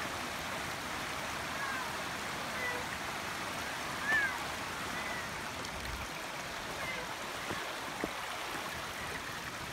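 Shallow creek running over rocks, a steady rushing water sound, with a few short high chirps over it, the loudest about four seconds in, and a couple of sharp clicks near the end.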